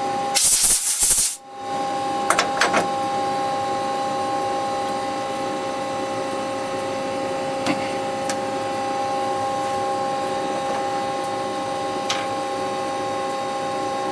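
A CNC lathe runs with a steady multi-tone whine. A loud hiss lasting about a second comes near the start, and a few light clicks and taps follow.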